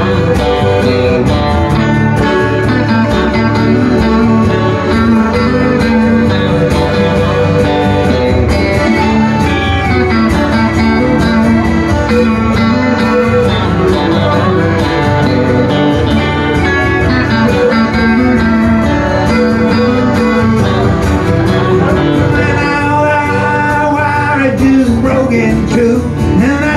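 Live band playing an instrumental passage on electric guitar, strummed acoustic guitar and piano accordion, with a man's singing coming in near the end.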